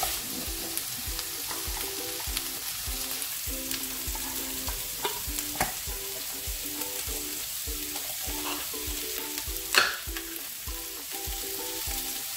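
Potatoes and onions sizzling in hot oil in a frying pan. About ten seconds in comes a sharp pop as the ring-pull on a can of tuna breaks the lid's seal.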